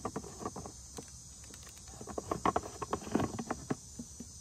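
A run of small plastic clicks and knocks as the black storage cap on a 1996 Yamaha Superjet's storage tube is worked loose and pulled off, most of them about two to four seconds in.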